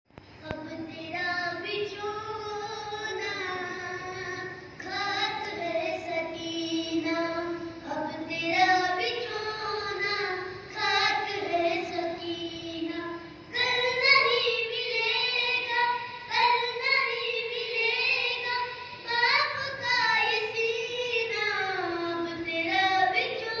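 A boy's solo voice singing a Muharram lament (noha) into a microphone, in long melodic phrases with held notes and short breaks between them.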